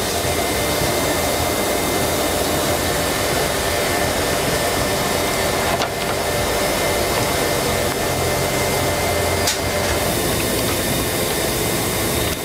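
Machinery in a banknote printing works running: a steady, even hiss with a low hum under it, and two faint clicks partway through.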